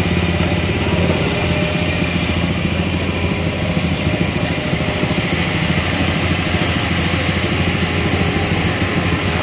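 Light truck's diesel engine running steadily as the loaded truck creeps down a steep, rough dirt slope.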